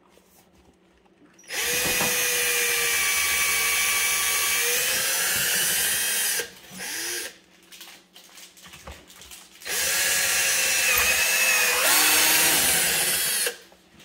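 Cordless drill with a twist bit boring two holes through a cabinet drawer front for a cup pull. There are two runs of about four to five seconds each with a pause between them, each a steady whine. The pitch sags a little toward the end of the first run and wavers near the end of the second.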